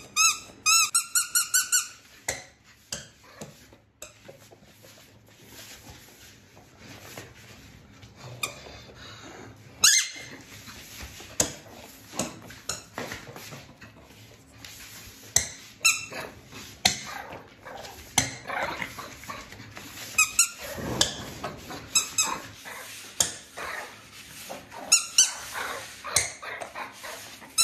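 A spiky squeaky toy ball squeezed in a quick run of about seven squeaks at the start, then squeaking again now and then among sharp clicks and knocks on a hard floor as a puppy plays with it.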